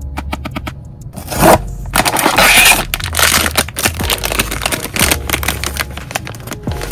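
Crinkling, scraping and tearing of blind-box packaging handled close to the microphone, a dense run of crackles and sharp clicks.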